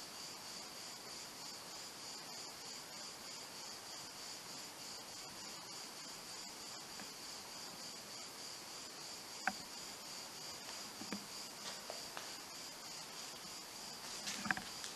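Crickets chirping in a steady, continuous high trill. There is a single sharp click about nine and a half seconds in, and a few faint scuffs and knocks near the end.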